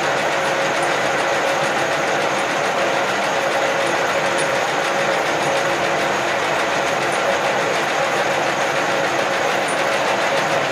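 Cincinnati No. 2 milling machine running steadily, its table traversing under power feed, with a steady whine over the machine noise.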